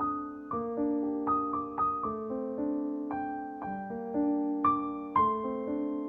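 Background music: a slow, gentle piano piece, single melody notes struck about every half second and ringing out over held chords.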